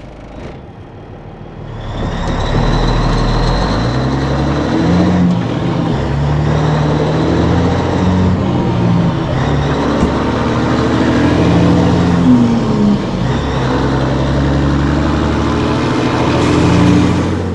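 Peterbilt 362 cabover's Caterpillar diesel engine pulling a heavy load away, working up through the gears. It is fairly quiet for about two seconds, then loud and steady as the truck pulls out.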